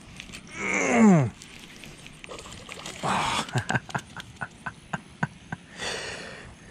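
A small bass splashing at the pond's edge as it is hauled in on a baitcasting rod. About half a second in comes a loud sound that falls in pitch. After about three seconds there is a splash, then a quick run of sharp ticks that fade out, and another short splash near the end.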